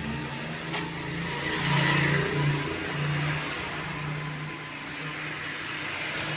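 Motor vehicle engine running with a steady hum, loudest about two seconds in.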